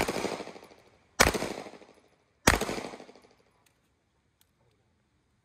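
Three handgun shots about 1.25 seconds apart, each followed by a decaying echo off the range.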